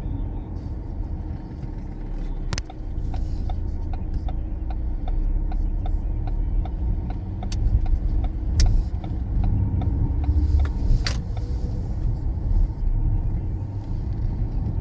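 Cabin noise of a Ford Fiesta SE hatchback with a four-cylinder engine and automatic gearbox, driving along: a steady low rumble of engine and road. Over it runs an even ticking, about three ticks a second, with a few sharper clicks; the ticking stops about eleven seconds in.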